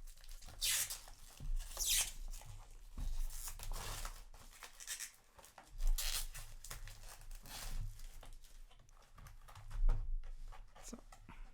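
A sealed trading card booster box being torn open: a series of short tearing and rustling strokes as its wrapping and cardboard are pulled apart.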